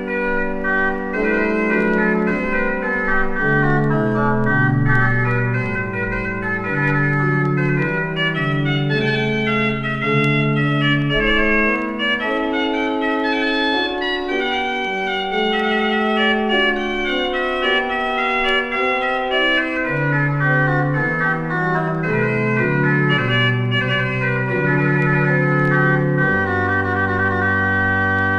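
Schwenkedel pipe organ playing an ornamented French Baroque solo on the récit's dessus de cornet, a five-rank cornet stop, over a softer accompaniment. About 26 seconds in, it settles on a long held chord with a low pedal note. Heard from a vinyl record.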